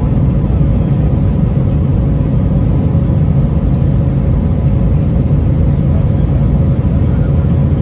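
Steady low rumble of engine and airflow noise inside the cabin of an Airbus A321 airliner in flight, with faint steady hums running through it.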